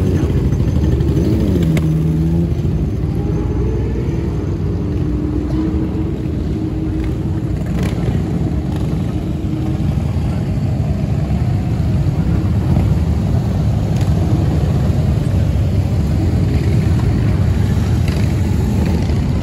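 Motor vehicle engines running in a steady low rumble, with one engine note dropping in pitch about two seconds in.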